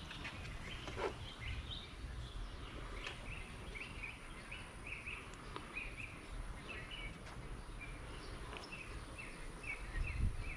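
A bird chirping over and over, short high chirps in quick runs, over a steady low outdoor rumble. A faint knock about a second in and a louder bump near the end.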